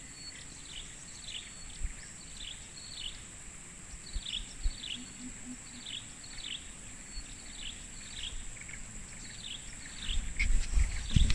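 Forest ambience: a steady high-pitched insect drone with a bird repeating short falling chirps, roughly two a second. Low rumbling thumps come in near the end.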